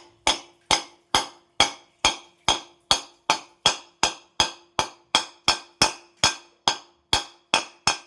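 Hammer tapping a new ball bearing into a ceiling fan's housing in a steady rhythm, a little over two sharp metallic knocks a second, with a faint ringing tone beneath them; the bearing is being seated gradually by light blows.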